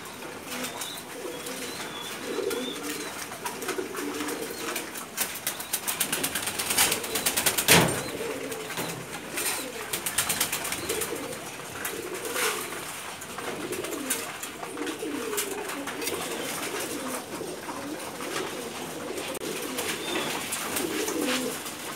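Domestic pigeons cooing steadily, many low coos overlapping. Between about five and eight seconds in, a run of clicks and rattles from the cages ends in a sharp knock, the loudest sound, with a few single clicks after.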